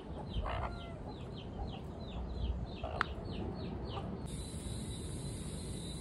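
Chicken calls: a rapid run of short, high, falling peeps, about three or four a second, with a low cluck near the start. About four seconds in the peeps stop and a steady high hiss takes over.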